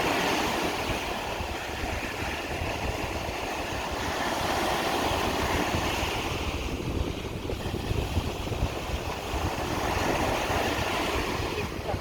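Sea waves washing ashore, the surf swelling and fading every few seconds, with wind rumbling on the microphone.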